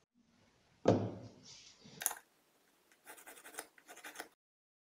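A heavy thump about a second in and a sharp knock near two seconds, then a pencil scratching in several short strokes as it marks out a maple axe-handle blank.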